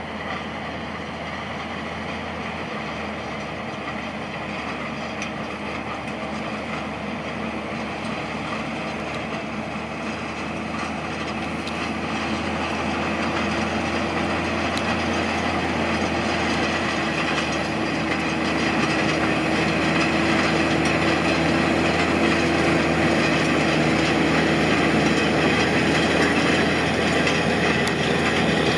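Fendt Favorit 716 Vario tractor's diesel engine running steadily under load while it tows an Agro-Factory Gromix 7.5 field roller, with the clatter of the roller's rings and frame over the soil. It grows gradually louder as it comes closer.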